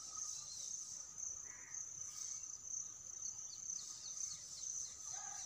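Steady high-pitched insect chorus shrilling, with a quick run of short falling bird chirps about four seconds in.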